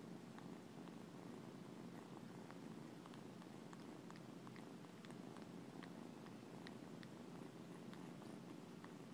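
Young kitten purring steadily and faintly while suckling on a human finger, with faint irregular clicks from the sucking.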